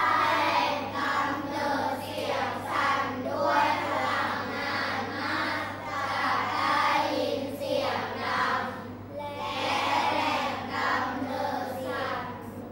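A class of schoolchildren reading a slide aloud in unison: a chorus of young voices chanting the text phrase by phrase, with short breaks between phrases.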